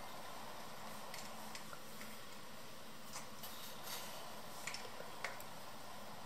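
Faint, scattered light clicks of hands scooping streusel crumble from a ceramic bowl and sprinkling it over cake dough in a springform pan, over a steady low hiss.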